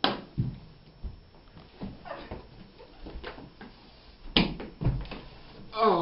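Several thumps and knocks of a body moving and landing on a hardwood floor, with a short vocal sound near the end.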